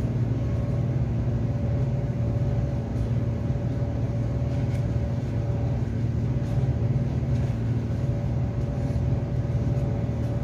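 A steady low machine hum with a few faint fixed tones above it, the loudest sound throughout. Faint scattered clicks and rustles of a fabric face mask and its plastic bag being handled.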